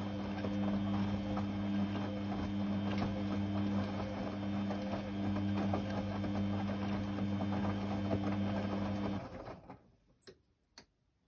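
Beko D2 8101E front-loading washing machine in its main wash: the drum motor runs with a steady hum while the drum tumbles wet laundry, water sloshing. The motor stops abruptly about nine seconds in, followed by a couple of faint clicks as the drum comes to rest.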